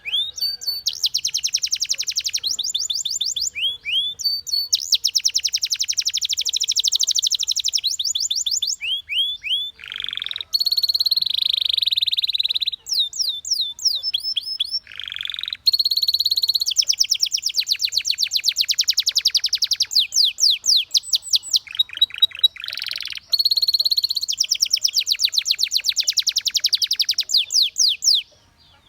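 Domestic canary singing: fast rolling trills, runs of repeated sweeping notes and a few longer buzzy rolls, with the song stopping abruptly near the end.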